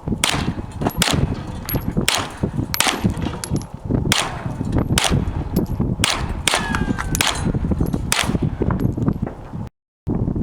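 A string of about a dozen gunshots, fired a half-second to a second apart, some followed by a metallic clang or ringing from hits on the targets. The sound cuts out briefly near the end.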